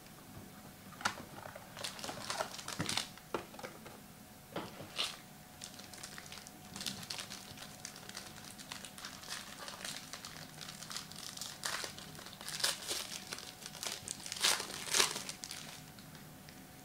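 Foil wrapper of a trading-card pack crinkling and tearing as it is handled and opened by hand, in irregular crackles that are loudest in the last few seconds.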